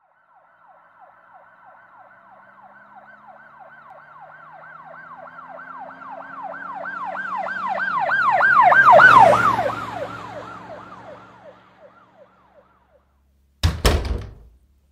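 An emergency-vehicle siren in a fast rising-and-falling yelp, about three sweeps a second, passing by: it grows steadily louder, peaks, then fades away. Near the end come two sharp knocks in quick succession.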